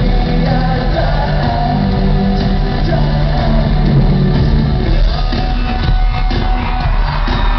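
Live rock band performing in an arena: guitars, bass and drums with a sung lead vocal, and the crowd shouting along.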